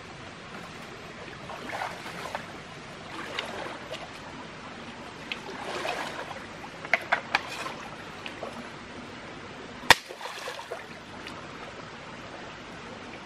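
Steady rush of stream water. Over it come rustling and scattered sharp clicks and knocks from handling things: three quick ticks about seven seconds in, and one loud sharp click about ten seconds in.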